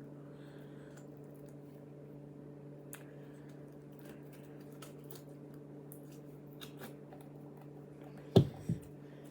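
Slime being squished and worked by hand, with a few faint clicks, then two sharp loud squelching pops close together near the end, over a steady low hum.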